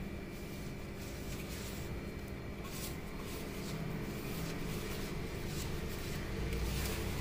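Fingers kneading and squeezing a dry flour-and-spice coating mix on a steel plate, a soft repeated rustling and scrunching, over a steady background hum.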